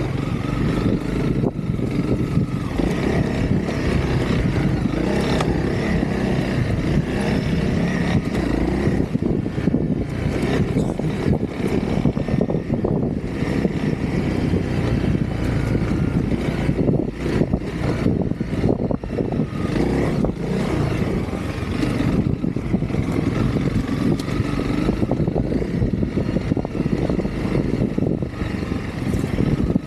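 Honda CRF300L trail bike's single-cylinder four-stroke engine running steadily as the bike is ridden along a dirt track.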